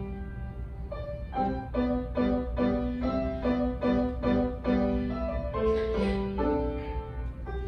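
Grand piano played solo: a melody in the right hand over a low note struck again and again in quick, even rhythm, with a steady low hum underneath.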